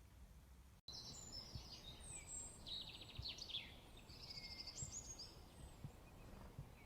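Eurasian bullfinch singing softly: a run of high, rapid twittering notes that starts about a second in and trails off after about five seconds, with a few faint low knocks beneath.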